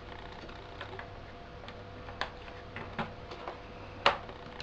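Scattered light plastic clicks and taps from a laptop's casing and hard-drive parts being handled and clipped back together, with one sharper click about four seconds in.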